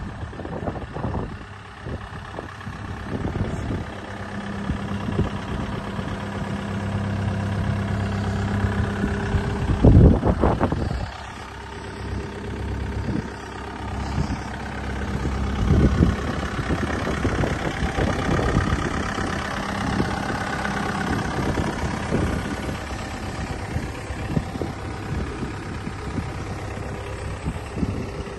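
Kubota U55-4 mini excavator's diesel engine running, its speed and load rising and falling, with a loud knock about ten seconds in.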